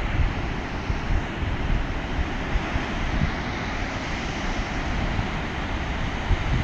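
Heavy surf breaking on a sandy beach and rocky outcrops: a steady rushing wash of waves with a low rumble.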